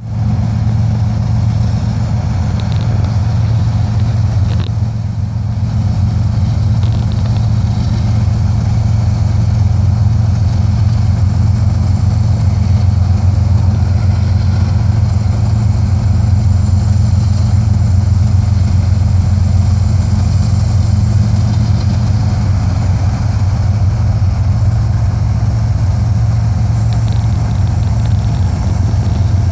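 Diesel locomotive engine idling, a steady low drone.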